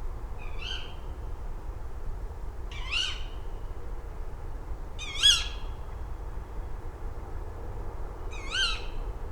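A bird gives a short call four times, a few seconds apart, over a steady low background rumble.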